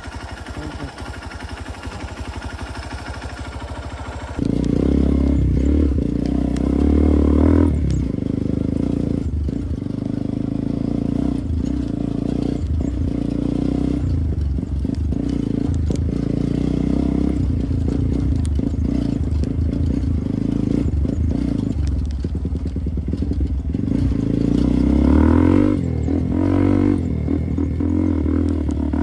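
Motorcycle engine running at low throttle, then about four seconds in it opens up and pulls under load, rising and falling with the throttle as it rides over rough trail. Short knocks and scrapes of the bike over the uneven ground come through on top.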